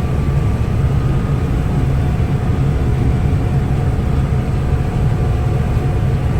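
Combine harvester running steadily while cutting a crop of oats: a continuous low engine and threshing drone with faint steady whining tones above it.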